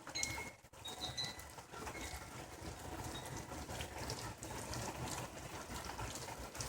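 Pea-sized hail and rain pattering densely, a steady crackle of many small sharp ticks.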